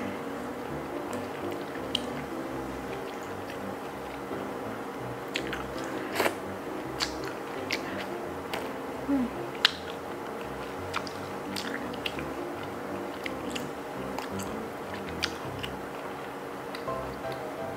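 Close-miked mouth sounds of eating razor clams in sweet-and-sour sauce: wet sucking, lip smacks and chewing, with scattered sharp clicks, the loudest about six seconds in.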